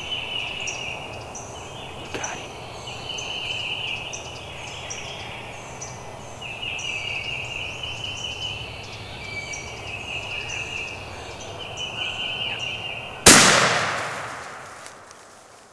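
Birds and insects calling in the woods, then about 13 seconds in a single loud shotgun blast that echoes away over about two seconds as a gobbler is shot at close range.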